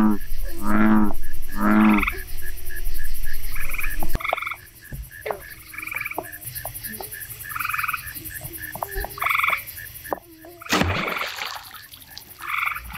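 Bullfrog calling: three deep croaks about a second apart, over a chorus of higher pulsing chirps. About eleven seconds in comes one sudden loud burst: the compound bow shot, with the arrow striking the frog in the water.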